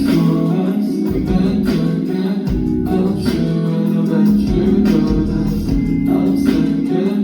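A pop song playing live over a concert PA, with guitar and a steady beat.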